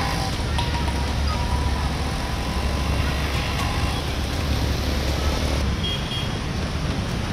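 Motorbike and scooter engines running as they ride through knee-deep floodwater, a steady low rumble of traffic with the wash of churned water.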